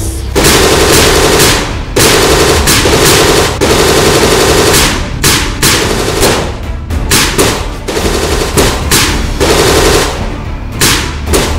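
Loud automatic-gunfire sounds in repeated bursts of about a second each, with short gaps between them, as the blasters are fired.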